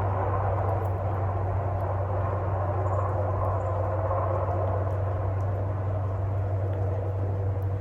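Handheld electric heat gun running steadily, its fan blowing with a constant hum, heating a solder seal connector until the solder ring melts.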